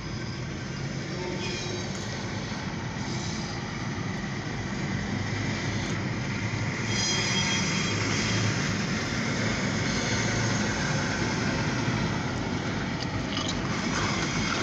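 Alco diesel switcher locomotive running light as it moves off along the track: a steady low engine rumble with wheel and rail noise, growing a little louder about halfway through. It is heard from inside a car.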